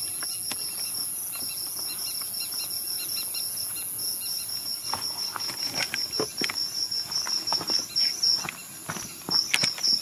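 Crickets chirping in fast, even pulses, about six a second, over a steady high insect buzz. From about halfway through come irregular footsteps and light crunching clicks on the ground.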